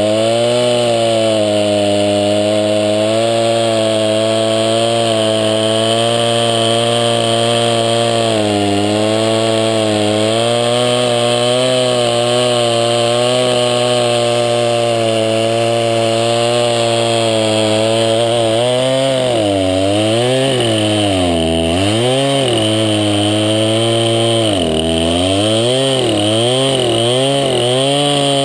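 Craftsman 20-inch 50cc two-stroke chainsaw running at high throttle while cutting a log. About two-thirds of the way through, the engine speed dips and recovers several times as the cut loads it down.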